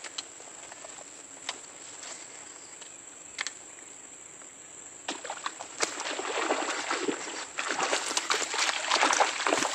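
Steady high-pitched insect drone, with a few sharp clicks, then a louder crackling rustle from about halfway through.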